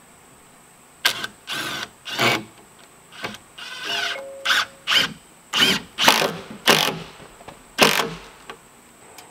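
Cordless drill driving screws into wooden batten siding in a quick run of short bursts, about ten in all, with the motor briefly whining in a longer burst about halfway through.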